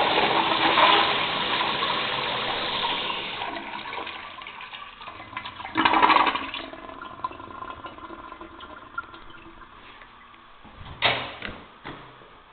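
1994–96 American Standard Afwall wall-hung toilet flushing on its flushometer valve: rushing water that dies away over the first few seconds as the flush ends. A short burst of water noise comes about six seconds in, and a knock near the end.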